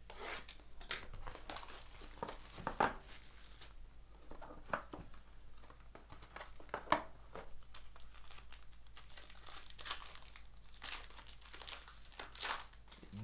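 Plastic wrapping crinkling and tearing, with irregular crackles and clicks throughout, as a trading-card pack is opened and the cards handled.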